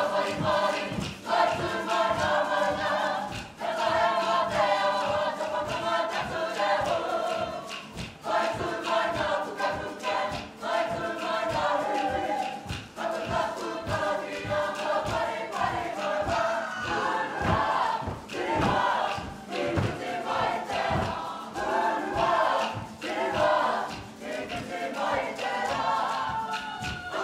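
A kapa haka group singing together in unison, in phrases of about two seconds with short breaks between, over a regular low beat.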